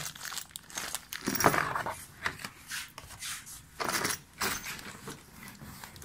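A small plastic bag of screws and fittings crinkling as it is handled, with cardboard packaging rustling and scraping; irregular bursts of handling noise.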